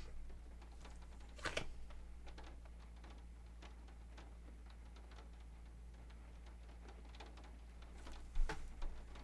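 Tarot cards being handled on a table: scattered light clicks and taps, with two louder card snaps about a second and a half in and near the end, over a low steady hum.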